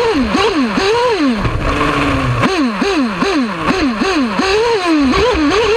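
Nova P5 Limited nitro engine of an RC buggy, revving up and down in quick repeated bursts, two or three a second, as the buggy is driven. For about a second near the middle it drops to a lower, steadier note before the rapid revving resumes.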